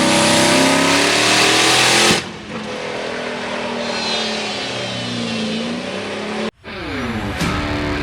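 Diesel truck engine running hard at full throttle, loud, cutting off abruptly about two seconds in and again near the end; guitar music begins in the last moments.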